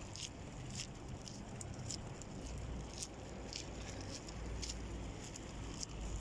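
Footsteps at a walking pace, light scuffs about twice a second, over a steady low rumble of traffic and wind that grows a little heavier partway through.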